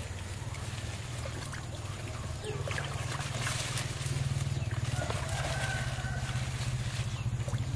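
A small engine running steadily nearby, a low pulsing drone that grows a little louder about three seconds in, with faint splashes as hands work in shallow water.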